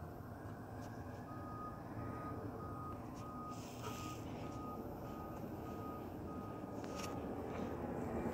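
Reversing alarm of an emergency vehicle beeping steadily, about two beeps a second, starting about a second in and stopping about seven seconds in, over a low idling engine rumble.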